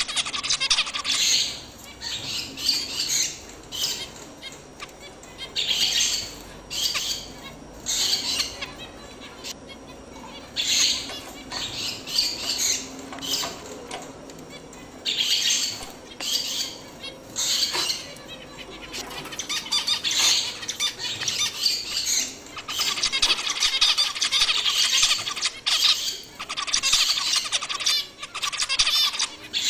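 A group of caged zebra finches calling in short, repeated bursts. The calling grows busier and almost continuous in the second half.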